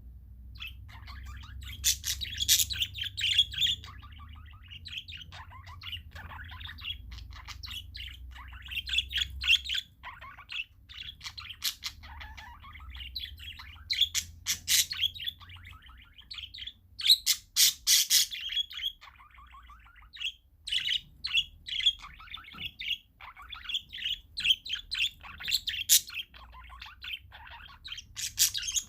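Parakeets chirping and squawking in a stream of short, rapid, overlapping calls, with louder bursts of sharp chirps every several seconds.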